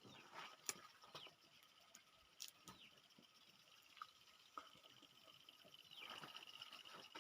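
Faint, scattered sharp clicks and crunches of peanuts being cracked open and eaten, over a steady high-pitched background drone with a few short falling chirps.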